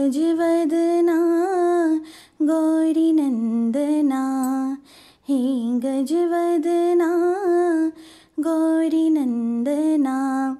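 A woman singing the melody of a Hindi devotional bhajan to Ganesha, her voice alone, in four long phrases with short pauses for breath between them.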